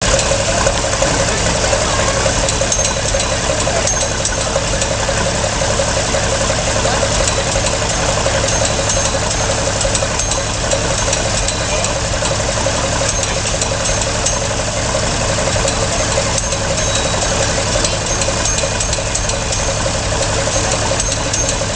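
Engine driving an antique sawmill, running steadily at an even speed throughout.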